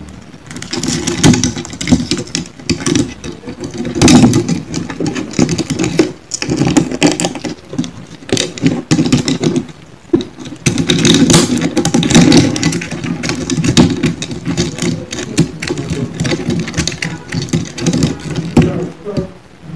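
Two golden stag beetles (Odontolabis cuvera) fighting: their hard mandibles and shells clicking, cracking and scraping against each other and the wooden log, a dense rapid crackle over a continuous low rattle, with louder surges about four seconds in and again around eleven to twelve seconds.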